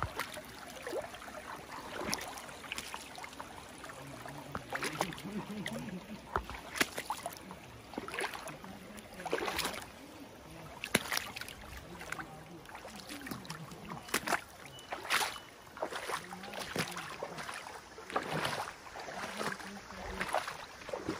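Water splashing and sloshing in short, irregular bursts, several times a few seconds apart, as of people moving through shallow water.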